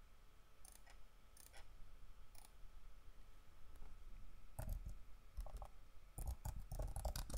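Computer keyboard and mouse clicks: a few scattered clicks, then a quicker run of keystrokes from a little past halfway, each with a soft thud on the desk.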